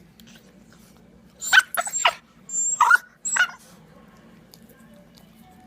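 An animal letting out about five short, strange, squeaky cries in quick succession, some with a thin high whistle, in the middle of the stretch.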